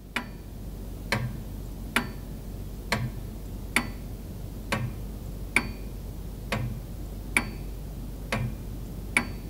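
Steady clock-like ticking, a little under one tick a second, over a faint low hum.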